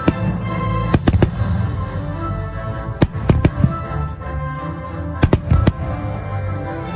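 Fireworks bursting in sharp bangs over music: two about a second in, three around three seconds, and three more past five seconds.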